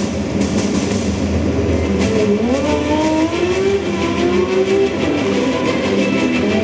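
Formula SAE race car's engine revving as the car accelerates, its pitch climbing from about two seconds in, played back over room speakers.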